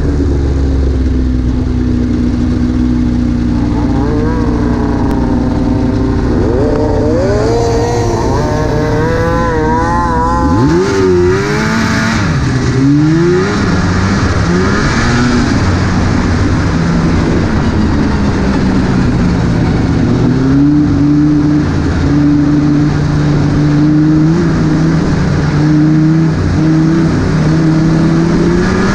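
Snowmobile engine idling, then revving in a series of rising and falling swoops from about ten seconds in as the sled pulls away. It then runs steadily at trail speed, its pitch slowly climbing.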